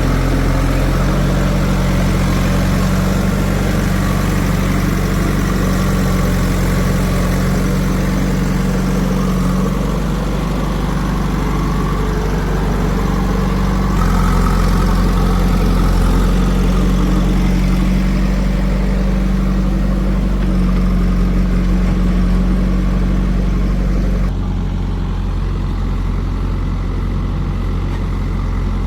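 Diesel engine of heavy farm or earthmoving machinery running steadily at low revs. The engine note changes abruptly twice, about halfway through and near the end.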